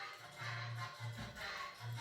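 Background music with a repeating bass note.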